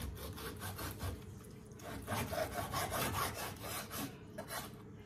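Chef's knife sawing back and forth through a rack of raw ribs between the bones, the blade rasping on a wooden cutting board in a run of quick repeated strokes.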